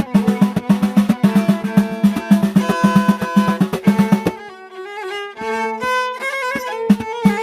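Moroccan chaabi music: a violin plays a melody over a fast, steady drum beat. About four seconds in the drums stop and the violin goes on alone with held, ornamented notes, then the drums come back near the end.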